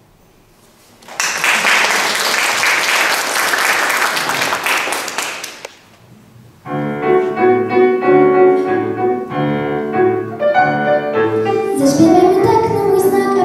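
Audience applauding for about five seconds, then a piano backing track starts the song's introduction, and a girl begins singing into a microphone near the end.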